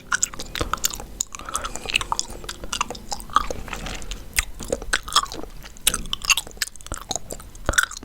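Close-miked chewing gum, with irregular wet smacks and clicks of the mouth working the gum.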